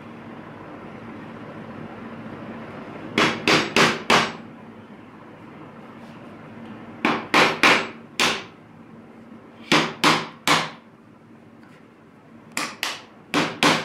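A small hammer tapping wooden kit parts to seat the side plates into the base plate as a tight, glue-free fit. The taps come in quick runs of three to five, with pauses of a couple of seconds between runs.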